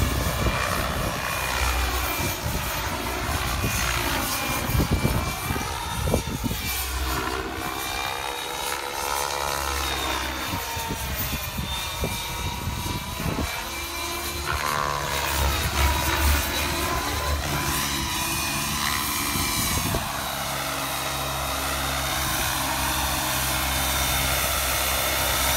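Turbine-powered RC model helicopter with a KingTech K-45 turbine engine in flight: a steady high turbine whine over the rotor noise, with a whoosh that swells and fades over and over as the helicopter swings and flips.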